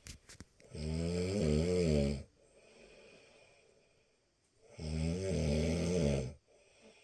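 A person snoring: two long snores about four seconds apart, each a wavering, pitched snore about a second and a half long, with faint breathing between them.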